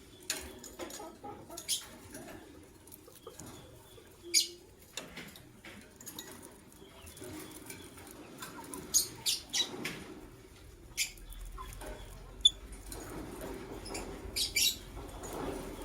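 Lovebirds giving short, shrill chirps now and then, several in quick succession about halfway through and again near the end, with soft fluttering and rustling between the calls.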